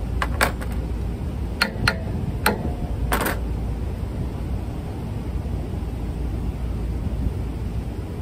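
Sharp metallic clinks of a steel spanner against the V-belt pulley and the motor's metal mounting plate, about six in the first three and a half seconds, some ringing briefly, the last a short rattle as the tool is set down. A steady low rumble runs underneath.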